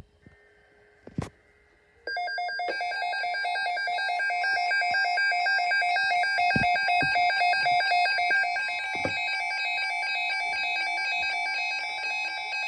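Weather radio receiver sounding its alert alarm for an incoming tornado watch: a loud electronic tone pulsing rapidly, starting about two seconds in and cutting off near the end.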